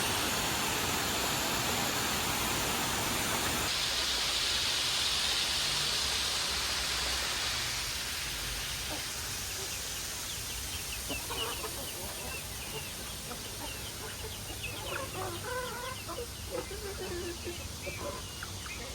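Water spraying from a garden hose with a steady hiss that fades after about eight seconds, then chickens clucking in short, repeated calls.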